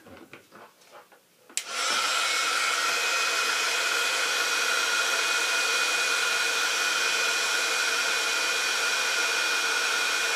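Handheld embossing heat gun switched on about a second and a half in, then running steadily: a rush of hot air with a steady whine from its fan. It is melting embossing powder onto a Versamark-stamped image.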